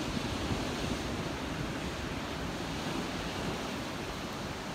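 Steady rush of small waves breaking on a sandy beach, with wind gusting on the microphone.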